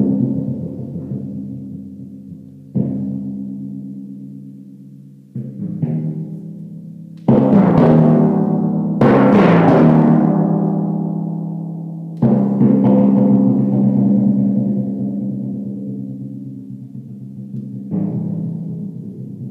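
Solo timpani, a set of four copper-bowled pedal drums struck with mallets: widely spaced strokes, each left to ring and fade, with a loud run of rapid strokes from about seven to ten seconds in.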